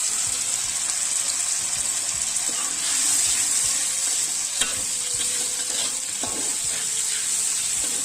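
Blended dried chilli paste sizzling steadily as it is sautéed in oil in a wok, with a few clicks as it is stirred. The paste is being fried until the oil separates from it.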